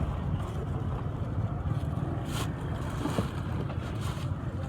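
Strong wind buffeting the microphone: a steady, deep rumble with a few faint ticks.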